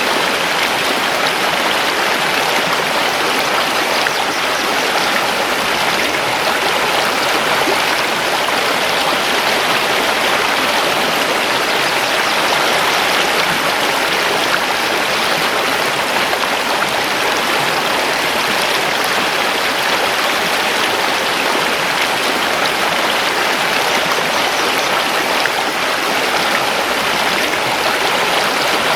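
Mountain river flowing over stones: a steady, even rush of water.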